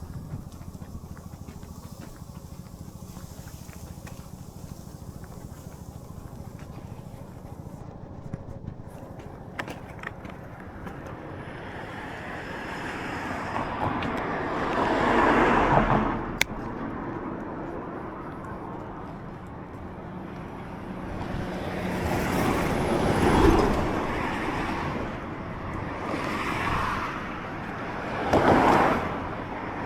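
Road traffic: a steady background hum, then vehicles passing one after another, each swelling up and fading away. The loudest goes by a little past the middle, and two more follow close together near the end.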